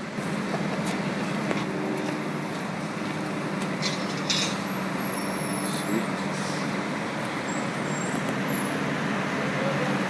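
City transit bus engine running as the bus moves slowly toward the listener, a steady low hum, with a couple of brief clicks about four seconds in.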